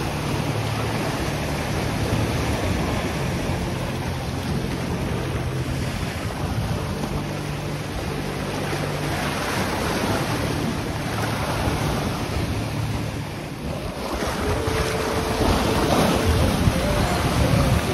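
Sea swell surging and breaking on a rocky shore, with wind buffeting the microphone.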